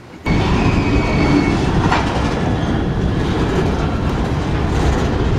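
Freight train of covered hopper cars rolling past close by: a loud, steady rumble and clatter of steel wheels on the rails, cutting in abruptly just after the start.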